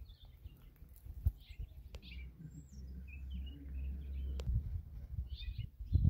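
Wind buffeting the microphone in uneven gusts, with a steadier rumble in the middle. Small birds chirp briefly now and then over it.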